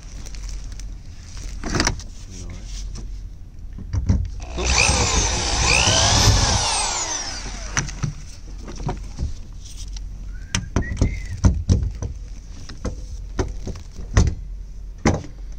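Metal tools clinking and knocking against the bare steel of a truck cab wall while bolts are worked by hand. About four seconds in comes a louder stretch of a few seconds of scraping and whirring that rises and falls in pitch.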